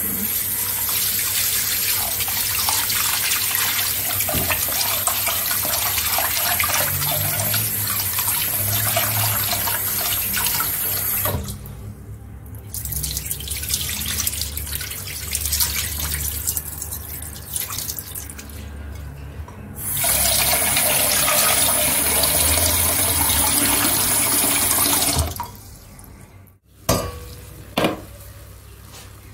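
Kitchen tap running into a sink. It stops about eleven seconds in and runs again for about five seconds a little later. A few sharp knocks come near the end.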